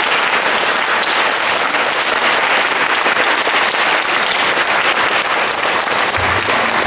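Audience applauding steadily: the dense clapping of a concert crowd after an opera aria.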